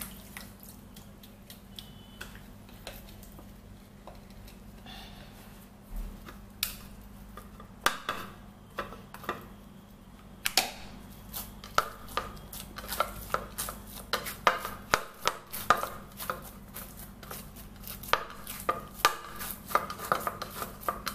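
Hand patting and pressing a lump of soft eba (cassava dough) into shape on a plastic plate: a run of short soft slaps, about two a second, from about halfway in. Before that, a few scattered knocks of dishes and utensils.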